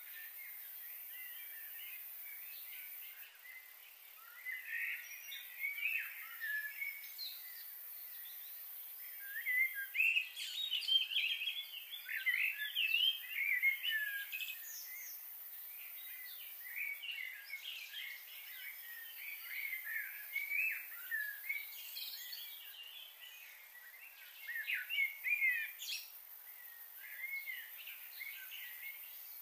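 Small birds chirping and calling, several overlapping, busiest from about ten to fifteen seconds in, over a steady high hiss.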